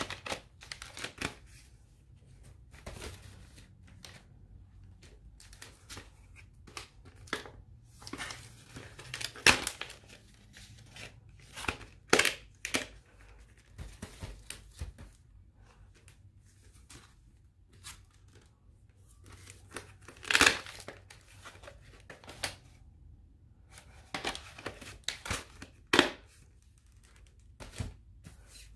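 Plastic VHS clamshell cases and tapes being handled: irregular clicks, rattles and crinkling, with a few louder snaps now and then.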